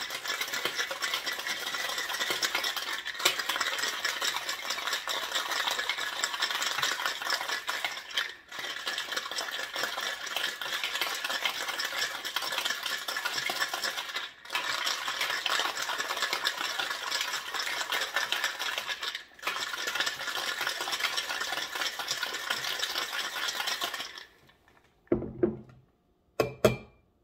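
Ice cubes rattling hard inside a Boston shaker, a steel tin capped over a mixing glass, as a cocktail is shaken with ice to chill and mix it. The shaking is steady for about 24 seconds with three brief breaks, then stops. Two short knocks follow near the end.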